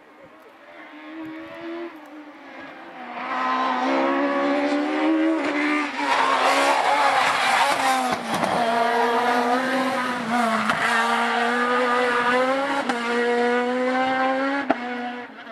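Rally car engine revving hard through the gears on a twisty road, its pitch climbing and then dropping at each gear change or lift-off. It grows louder over the first few seconds, stays loud, then cuts off abruptly near the end.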